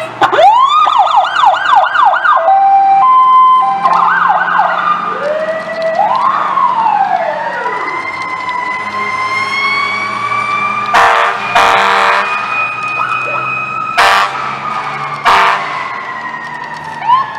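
Fire engine sirens sounding as the trucks pull out: a fast yelp and quick up-and-down wail sweeps at first, then a siren that rises slowly over several seconds and slowly falls away, with four short air horn blasts near the middle. A low diesel engine rumble runs underneath.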